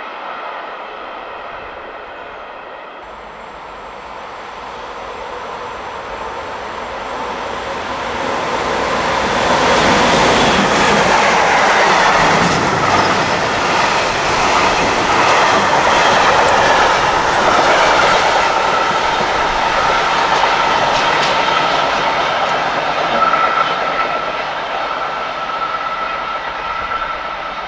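A freight train of log-laden stake wagons running past at speed. It grows louder over several seconds, then keeps up a long rumble and clatter of wagon wheels. A thin, steady high-pitched wheel squeal joins in the later part.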